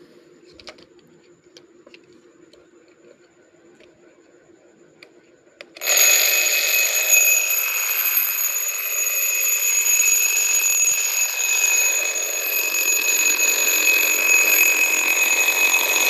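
Children's alarm clock: a few faint clicks of handling, then about six seconds in the alarm starts ringing loudly and keeps ringing without a break.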